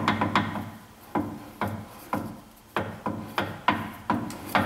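Hand work with tools at a pickup's rear axle and driveshaft: a series of sharp knocks and clinks, about two a second, each ringing briefly.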